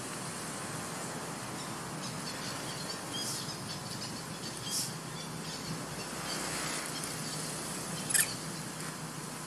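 A few short, high-pitched animal squeaks over a steady outdoor hiss, the loudest and sharpest one a little after eight seconds in.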